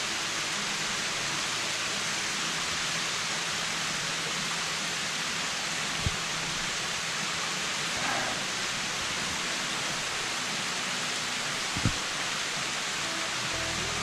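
Waterfall of thin streams sliding down a steep rock face into a shallow pool: a steady, even rush of falling water. Two brief low knocks come about six and twelve seconds in.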